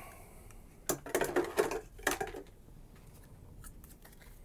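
Spools of fishing line and wire being rummaged through and picked up off a desk. There is a cluster of sharp knocks and rattles about a second in, lasting a second and a half, then only a few faint handling ticks.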